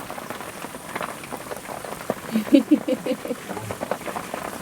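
Wet splashing and sloshing of mud and water as baby elephants play in a mud wallow, a steady patter of small splashes, with a quick run of short pitched sounds about halfway through.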